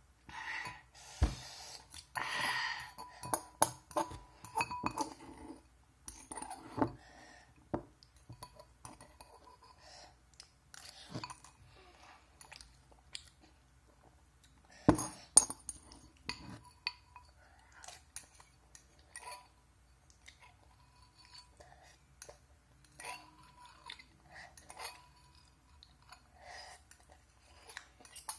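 A spoon clinking and scraping against a ceramic bowl, mixed with chewing, as the last of the noodles are eaten. Scattered light clicks run throughout, with sharper knocks about a second in and about fifteen seconds in.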